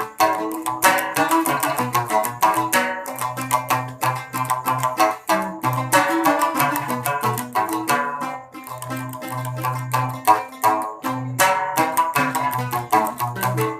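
Giant gambus, a Sasak plucked lute, playing a solo instrumental passage: quick runs of plucked notes over a repeated low bass note.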